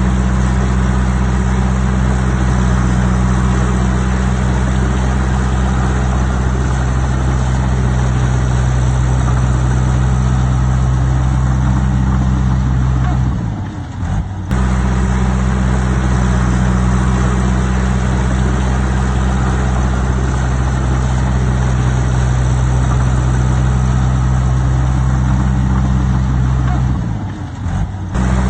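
Diesel engine of a heavy earthmoving machine running steadily. Its note briefly drops and breaks off about halfway through and again near the end.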